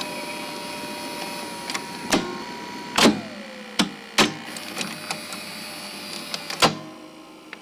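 A videotape player's mechanism loading and running a tape: sharp mechanical clunks over a steady whirring hiss, with a faint tone that bends down in pitch about three seconds in.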